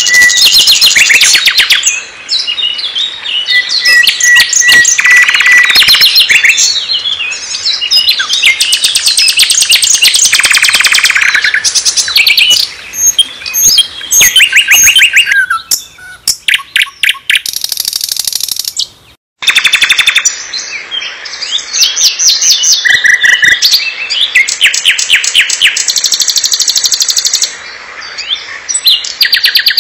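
Nightingale singing: fast runs of rapidly repeated notes and rattling trills, broken by pure whistled notes held for a second or more. The song drops out for a moment about two-thirds of the way through, then carries on with more trills and repeated notes.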